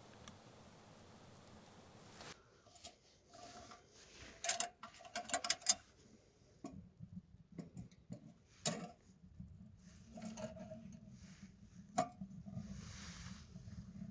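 Twigs and dry tinder catching alight in a small tent wood stove. They crackle and pop in irregular clicks, thickest for a second or so near the middle, while a low, steady draught sound builds toward the end.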